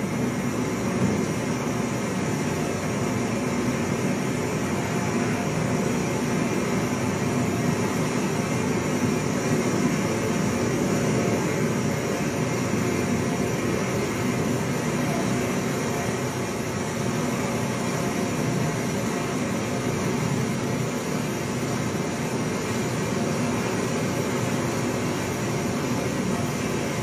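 Steady rush of a large waterfall's white water, played back from a video through a display screen's speakers.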